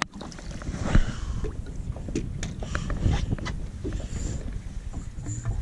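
Water splashing as a hooked gag grouper thrashes at the surface beside a boat's hull and is lifted out, with scattered sharp knocks and clicks over a steady low rumble.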